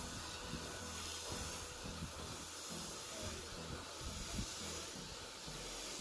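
Steady hiss of compressed air from a gravity-feed spray gun spraying paint.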